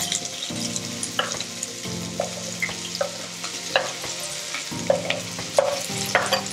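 Chopped onions frying in hot oil in an aluminium pressure cooker on a low flame, with a light sizzle. A spoon scraping the onions off a wooden board makes scattered clicks against the board and the pot.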